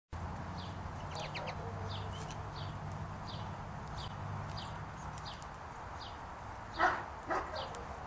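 House sparrow chirping: a steady series of short single chirps, about three every two seconds, over a low steady hum. Near the end come two louder, lower calls about half a second apart.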